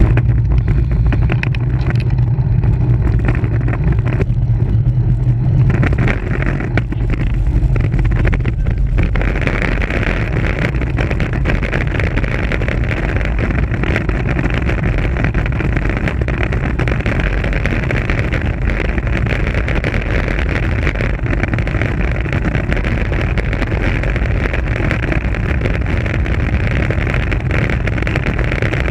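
Wind rushing over a GoPro Hero 3+ microphone on a road bike descending at speed: a loud, steady rumble and rush. About nine seconds in, a higher hiss joins it and stays.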